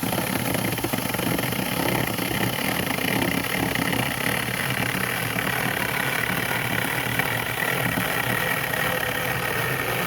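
Sousky Mini 6-inch battery-powered chainsaw running steadily, its electric motor whining and the chain cutting through hard walnut wood.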